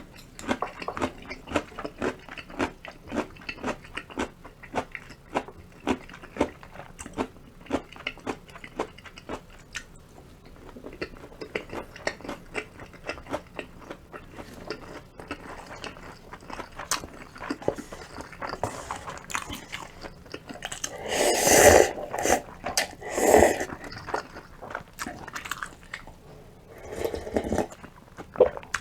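Close-miked eating: a person biting and chewing crunchy food, with rapid crisp crunches at first that turn softer. A few louder, longer bursts come about two-thirds of the way in and again near the end.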